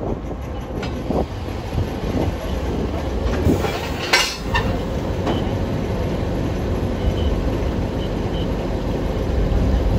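Locomotive easing up to a passenger car for coupling: a steady low rumble with a few metallic knocks, and a short high-pitched noise about four seconds in.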